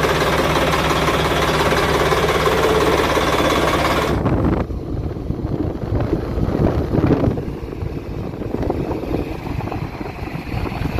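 A river ferry's inboard marine engine running steadily close up, just after starting. About four seconds in the sound changes abruptly to a quieter, uneven outdoor rumble.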